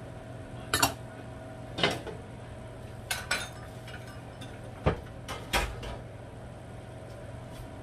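Kitchen dishes and utensils clinking and knocking: about seven separate sharp clinks spread over several seconds, over a steady low hum.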